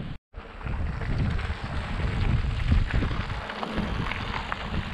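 Wind buffeting the microphone over the rolling noise of a mountain bike on a trail, with scattered small rattles and clicks. The sound cuts out completely for an instant just after the start.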